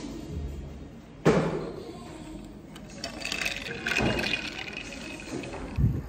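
Iced latte sucked up through a straw from a glass, a gurgling slurp in the second half. A sharp knock about a second in.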